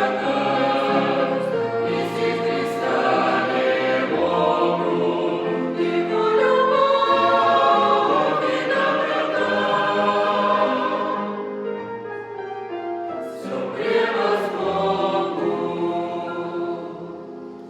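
Choir singing, many voices together, fading out near the end.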